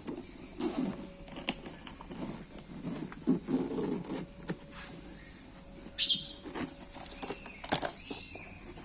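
A drone carrying bag being handled: scattered clicks, knocks and rustling, with short scratchy scrapes, the loudest about six seconds in.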